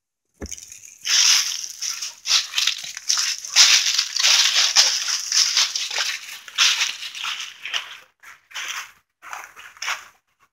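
Dry fallen leaves crunching and rustling underfoot in irregular bursts, as someone walks through a thick layer of them.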